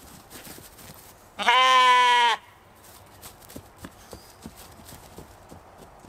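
A Katahdin sheep bleats once, a loud pitched call lasting about a second. After it come light, irregular hoof knocks as the sheep run about on the grass.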